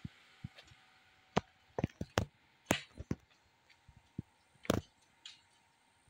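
A string of short, sharp knocks and clicks at irregular intervals, over a low background hiss; the loudest come about a second and a half in, around two to three seconds in, and about three-quarters of the way through.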